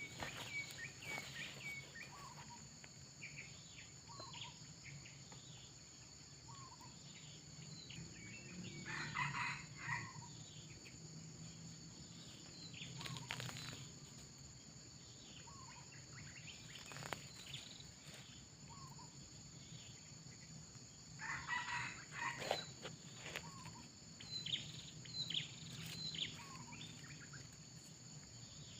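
Red junglefowl cocks crowing twice, each crow about a second and a half long, around nine seconds in and again around twenty-one seconds in. Short faint chirps and a steady high drone run underneath.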